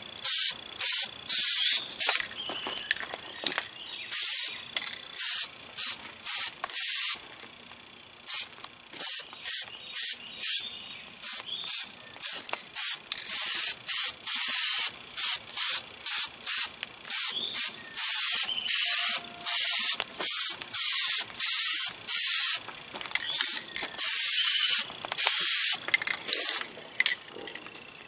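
Rust-Oleum aerosol spray paint can hissing in many short bursts, with a few longer sprays, as a coat of red paint goes on.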